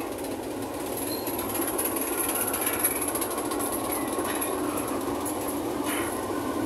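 Pacific National NR class diesel-electric locomotives, GE V16 engines, running past in a coupled line, engines running and wheels rumbling on the rails. The sound builds as the lead unit draws level, with a thin high whine over the rumble and a couple of sharp clacks near the end.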